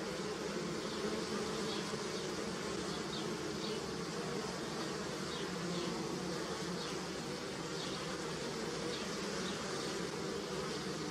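Many honey bees buzzing steadily as they forage on flowering willow. Faint short high chirps recur in the background every half second or so.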